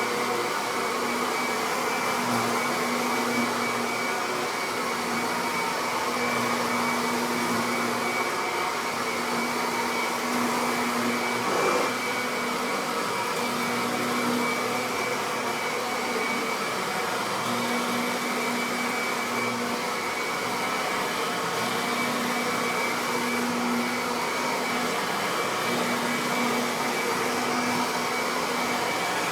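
Upright vacuum cleaner running steadily on carpet, a motor hum with a fixed high whine, and a brief bump about halfway through.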